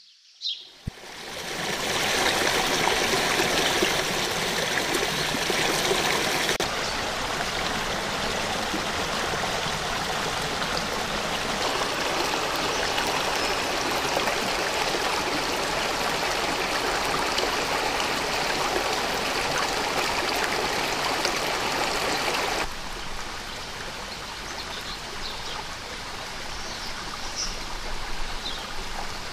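A small rocky stream running and trickling over stones, a steady rush of water that fades in about a second in and drops to a softer level about three quarters of the way through.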